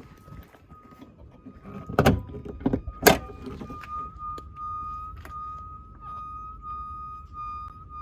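A high whistle-like tone from the engine bay of a Suzuki Swift Sport ZC33S, repeating in short, even pulses about twice a second. Its cause is unknown to the owner. Two sharp knocks sound about two and three seconds in.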